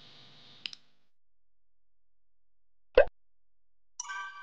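A single short pop sound effect about three seconds in, after a light clink and a stretch of silence; about a second later a bright chiming jingle begins.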